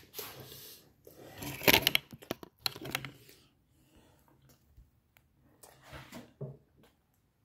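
Handling noise from a phone being picked up and moved: rustling and a quick cluster of sharp clicks and knocks about two seconds in, then a few softer rustles and taps near the end.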